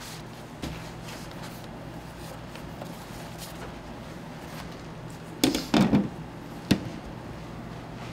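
Handling noises in a working bakery: a steady low hum with a few light taps, then a quick cluster of loud knocks about five and a half seconds in and a single sharp click a second later.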